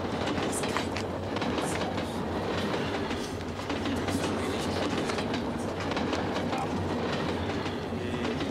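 Moving train heard from inside a passenger carriage: a steady rumble and rattle with occasional short clicks from the wheels.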